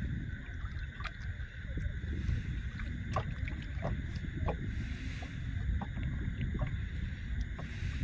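Close handling of a tengra catfish and a fishing hook on a small boat: scattered small clicks and rustles as a swallowed hook is worked loose. A steady low rumble and a steady high-pitched hum run beneath.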